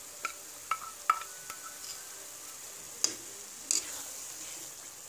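Hot oil and masala sizzling steadily in an iron kadhai as a wet spice paste is scraped in from a steel bowl and stirred, with about five sharp clinks of the steel spatula against the bowl and the wok, the loudest about a second in.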